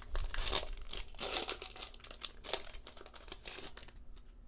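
Foil wrapper of a Pokémon booster pack crinkling and tearing as it is opened and the cards are pulled out. The rustling is densest in the first two and a half seconds, then thins to a few light crackles and fades out near the end.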